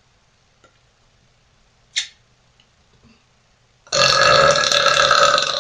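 A woman's long, loud burp with a clear pitch, lasting under two seconds, starting about four seconds in. A brief sharp sound comes about two seconds in.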